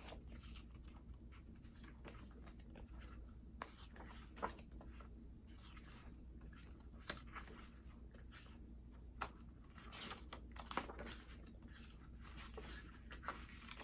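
Faint rustling of paper with scattered soft clicks and taps as the glossy pages of a K-pop album photobook are turned.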